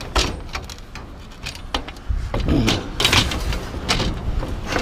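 Aluminum chairs clattering and knocking as they are handled and stacked, with metal scraping and squealing briefly a few times.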